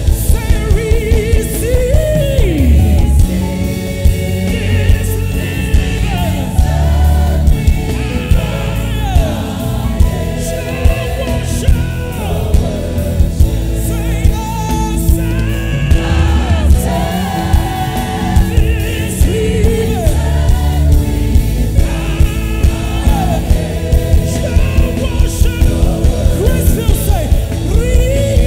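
Live gospel praise music: a lead singer with a backing choir over a band with heavy bass and a steady driving beat.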